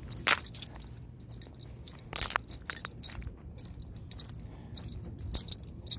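Metal chain collar and leash hardware on a walking pit bull jingling and clinking irregularly, with a few louder clinks near the start and about two seconds in.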